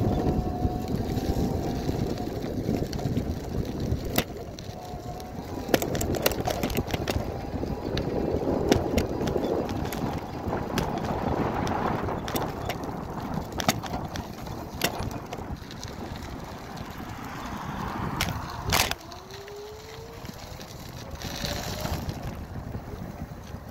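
Bicycle rolling over cracked asphalt: a steady rumble of tyre and wind noise on the microphone, with frequent clicks and knocks as the bike jolts over cracks, the sharpest about three-quarters through. A faint tone rises in pitch just after that knock.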